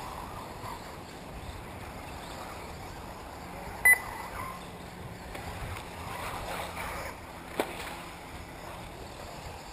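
Steady outdoor background noise, with a single short, sharp beep about four seconds in and a smaller click a few seconds later.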